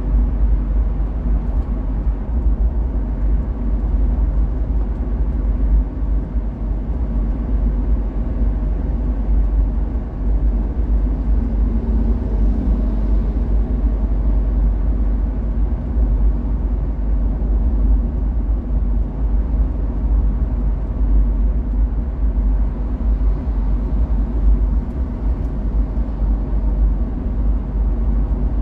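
Cabin noise inside a Mahindra Scorpio cruising on an expressway, heard from the rear of the cabin: a steady low road rumble with tyre noise from BFGoodrich all-terrain tyres, plus engine drone and some wind.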